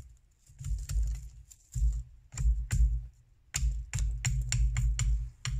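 A large chopping knife striking a thin green sapling in quick runs of hits, each with a sharp crack and a dull thump, in about four bursts with short pauses between, as branches are trimmed off.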